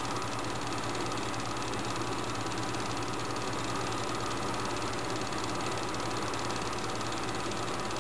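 Super 8 film projector running with a steady mechanical whir.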